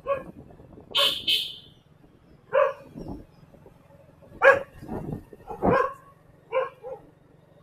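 A dog barking repeatedly, about ten short barks in an irregular series, over a low steady hum.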